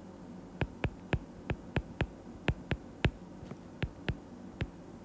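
Stylus tip tapping on a tablet's glass screen while handwriting, about a dozen sharp, irregular clicks beginning about half a second in, over a faint steady hum.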